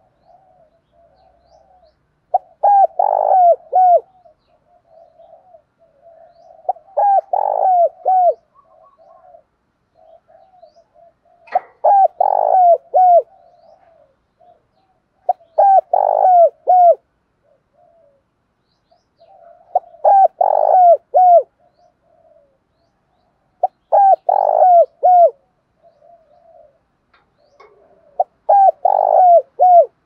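Spotted dove cooing: a loud phrase of three or four falling notes repeated about every four seconds, seven times, with quieter cooing between the phrases.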